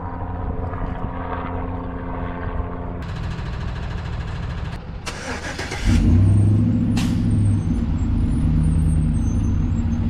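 A motor vehicle's engine running with a steady low hum, growing louder about six seconds in.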